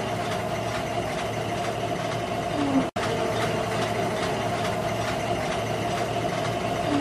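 Book-production line machinery running with a steady drone and a constant whine as finished books move along a conveyor belt. The sound cuts out for an instant about three seconds in.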